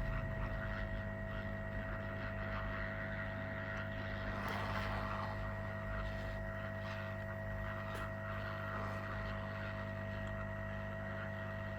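Steady electrical hum with a constant high whine from running repair-bench equipment, with faint clicks about four and a half and eight seconds in.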